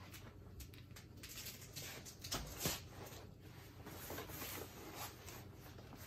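Faint rustling and creaking of a paramotor harness's fabric, straps and buckles as a person lowers himself into the hanging seat, with small clicks throughout and a louder rustle about two and a half seconds in.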